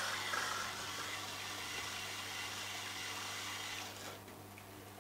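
Tormek T-8 water-cooled sharpening machine running with a low steady hum and a hiss, turning quieter about four seconds in.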